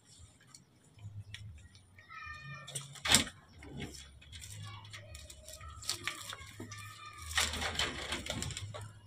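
Baby macaques giving high-pitched squealing cries, one clear drawn-out squeal about two seconds in and shorter cries later. A sharp knock sounds just after three seconds in.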